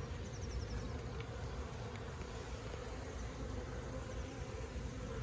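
Honey bee colony buzzing steadily: a dense, even hum of many bees on and around the open comb as the hive is being removed.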